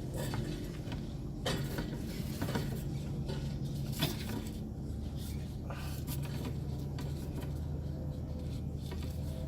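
Scattered clicks, knocks and light rattles of household objects being handled, the sharpest knock about four seconds in, over a steady low hum that drops in pitch about halfway through.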